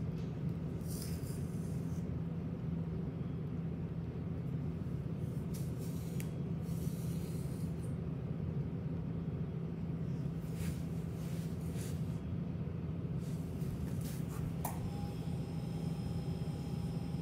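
Grooming brush sweeping through a Bernese mountain dog's thick coat: irregular short rasping strokes over a steady low hum. About three quarters of the way through, a faint steady whine starts.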